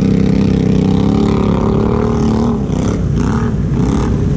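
ATV engine running steadily, then revved a few times from about two seconds in, its pitch dipping and rising.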